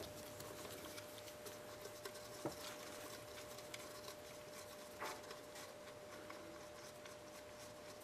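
Faint handling noise inside an engine crankcase: small clicks and light rustling of a gloved hand moving metal parts, with a sharper click about two and a half seconds in and another soft knock about five seconds in.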